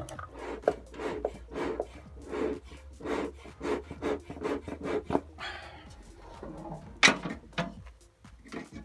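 A run of short, rasping, scraping strokes, two to three a second, then a single loud knock about seven seconds in as the metal lid of a box smoker is shut.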